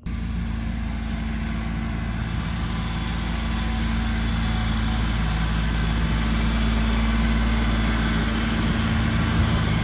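A motor running steadily with a constant low hum, starting abruptly and growing slightly louder a few seconds in.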